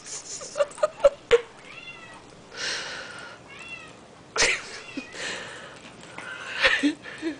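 A dog playing under a couch with a cat toy: a few short, high, meow-like cries and squeaks, with rustling bursts and several sharp knocks.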